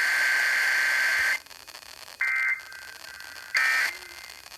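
Emergency Alert System digital data tones over broadcast radio: a harsh two-pitch screech that cuts off about a second and a half in, then two short bursts of the same screech a little over a second apart, with radio hiss between them.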